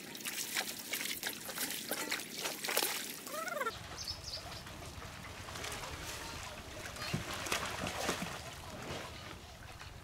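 Water splashing and trickling as a wet fishing net is hauled up out of a muddy pond, with people's voices. The splashing is busiest in the first few seconds; about four seconds in a steady low rumble sets in under it.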